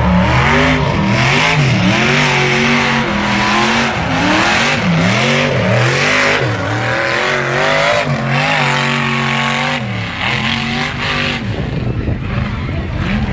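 A mud truck's engine revving hard up and down, over and over, as it is driven through the mud pit, then fading off about eleven seconds in as the truck pulls away.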